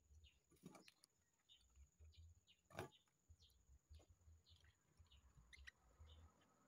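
Near silence, with faint short bird-like chirps and a few soft clicks as cut potato pieces are set into a stainless steel pot. The loudest click comes just under three seconds in.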